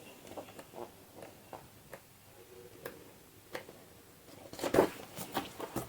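Pages of a picture book being turned and handled: light paper rustles and small taps, with a louder run of rustling near the end.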